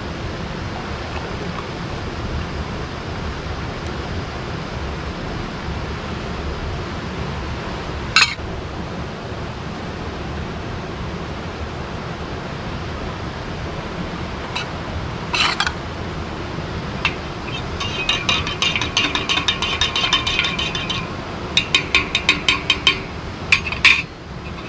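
A metal teaspoon clinking against the inside of a stainless steel mug as coffee is stirred: a few single clinks, then a run of quick, ringing clinks in the last six seconds or so. Under it, the steady rush of a river's running water.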